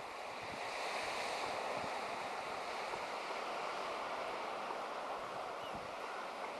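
Sea surf washing onto the shore, a steady rushing noise that swells about a second in, with light wind buffeting on the microphone.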